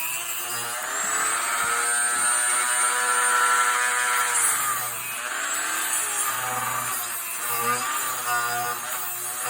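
Rotary tool with a thin cut-off wheel spinning at high speed and cutting into a pinewood car block. Its whine sags in pitch and recovers several times as the wheel loads up in the wood.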